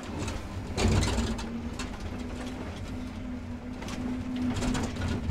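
Excavator running under load as it digs, heard from inside the cab: a steady engine rumble with a steady whine, and a few knocks and scrapes from the bucket working dirt and rock.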